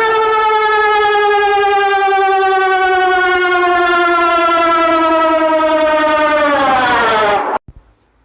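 Emergency alert siren wailing at a nearly steady pitch with a slight waver, drifting slowly lower, then sliding down and cutting off abruptly about seven and a half seconds in.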